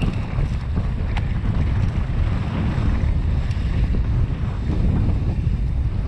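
Wind buffeting an action camera's microphone as a downhill mountain bike rolls fast along a dirt ridge trail, with tyre noise on the dirt underneath. A couple of sharp ticks stand out, about a second in and again a few seconds later.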